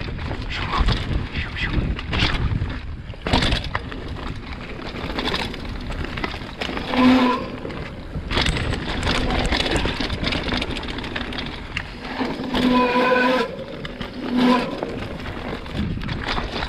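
Mountain bike riding fast down a dirt trail: a steady rush of wind and tyre noise with the bike rattling and knocking sharply over bumps. A few short, steady pitched tones break in about seven seconds in and again between about twelve and fifteen seconds.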